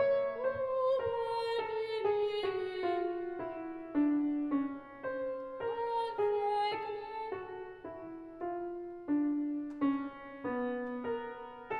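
Grand piano playing a slow contemporary classical passage of separate struck notes and chords, two or three a second, each left to ring in a reverberant church.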